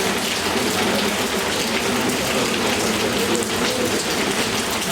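A steady hiss with a dense patter through it, of the rain kind, with faint wavering voice-like tones underneath.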